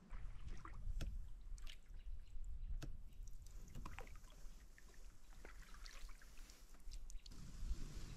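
Light water sounds around a canoe on calm lake water: scattered small drips, trickles and splashes, with a low rumble underneath.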